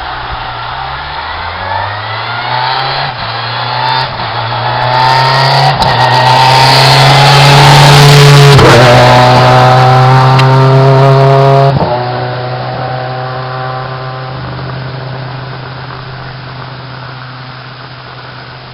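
Peugeot 306 Maxi rally car's four-cylinder engine at full throttle, climbing in pitch through several upshifts as it approaches. It passes close with a drop in pitch about eight seconds in, cuts back abruptly about twelve seconds in, then fades away into the distance.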